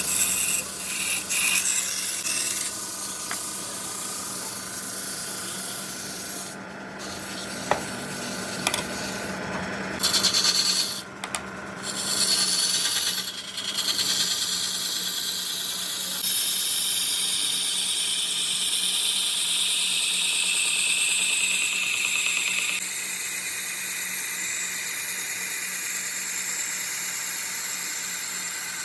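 Wood being worked on a running lathe: a steady rubbing, rasping noise over a constant motor hum. It breaks off abruptly a few times about a third of the way in, then carries on.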